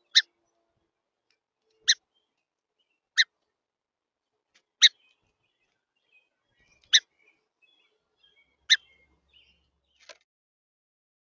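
A songbird giving short, sharp chip calls, seven in a row at intervals of about one and a half to two seconds, the last one fainter.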